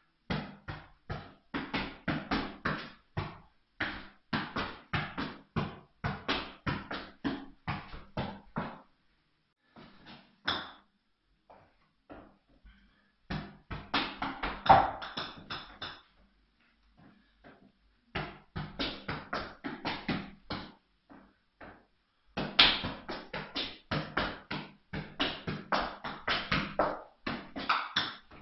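A golf ball tapped repeatedly off the feet in keepie-uppie, a quick even ticking of about three to four touches a second. It comes in runs of several seconds broken by short pauses.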